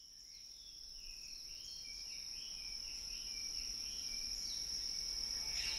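A steady, high-pitched insect-like drone with warbling bird-like chirps over it, fading in from silence.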